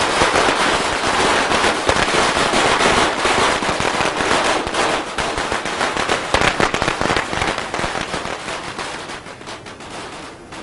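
A pile of Chinese firecrackers going off in a rapid, dense crackle of bangs that thins out and fades away over the last few seconds.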